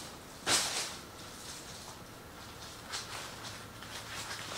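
Rustling of a non-woven fabric shoe dust bag as it is handled, with one loud, brief rustle about half a second in and softer rustles about three seconds in and near the end.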